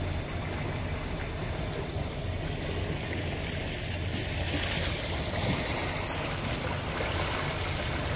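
A boat under way: a steady rush of water along the hull and in the wake, with a low rumble of wind on the microphone.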